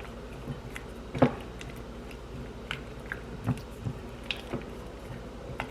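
A spoon stirring sliced strawberries into a soft, melted cream cheese and honey mixture, making wet squishing sounds with a few light clicks against the bowl.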